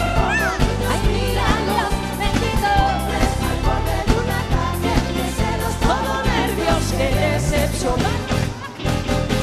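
Live pop band playing an up-tempo dance song with a steady beat and bass, with singing over it. The music dips briefly near the end.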